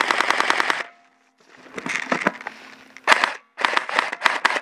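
M4-style airsoft electric rifle firing on full auto, a fast run of shots that stops about a second in. After a pause and a brief scuffle of noise, it fires several short bursts in quick succession.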